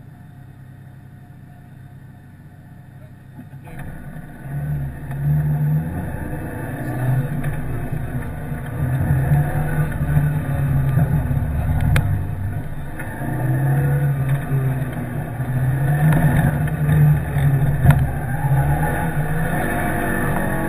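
Peugeot 106 rally car's engine heard from inside the cabin: running quietly at first, then about four seconds in it gets much louder and the revs rise and fall over and over as the car drives on. Two sharp clicks come through in the second half.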